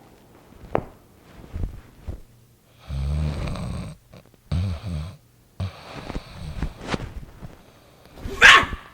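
A man snoring: two rattling snores around the middle, with quieter breathing noises between, and a short, loud rasping burst near the end.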